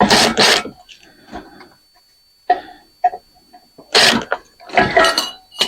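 Irregular bursts of clanking and knocking from steel ceiling-fan parts being worked loose by hand: two sharp bursts at the start, a few light clicks, then louder clatters in the last two seconds.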